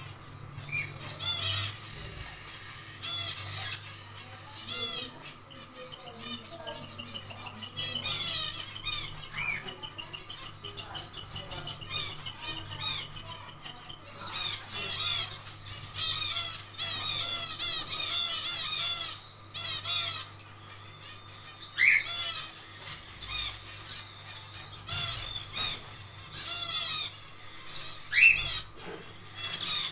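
Zebra finches calling and chattering without a break, many short nasal calls overlapping, with a fast run of repeated notes about eight seconds in. A steady low hum runs underneath.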